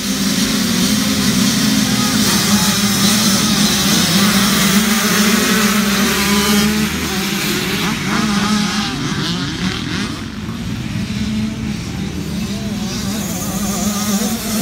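A pack of youth motocross bikes running at the start gate, then revving hard as they launch off the line about halfway through and race away, engine pitches rising and falling.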